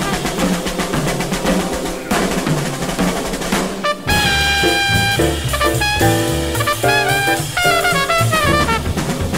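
Hard bop jazz recording by a sextet of trumpet, alto saxophone, trombone, piano, bass and drums. Drums and walking bass play under the band, and about four seconds in the horns come in with a long held note, then short punched chords.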